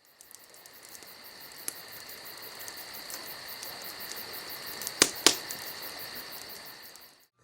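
Insects chirping in a steady, fast-pulsing high chorus that fades in at the start, with two sharp clicks about five seconds in.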